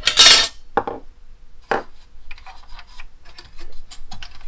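Clicks, taps and a short clatter of plastic and metal parts being handled inside an opened Kodak Carousel 5200 slide projector. A loud scraping clatter comes at the start, then two single sharp clicks, then a run of small irregular ticks and taps.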